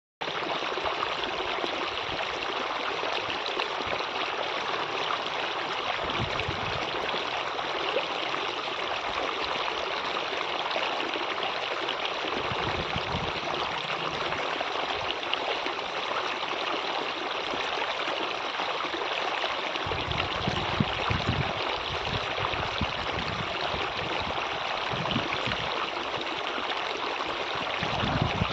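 Steady rushing of flowing water, like a stream, with irregular low rumbles in the last third.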